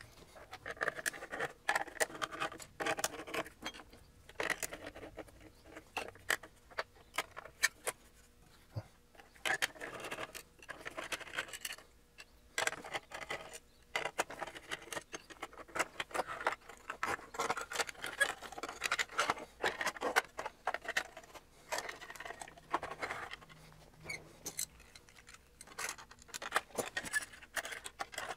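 Hands taking apart a small metal HP instrument case: irregular clicks, taps and scrapes of the sheet-metal panels and frame being handled.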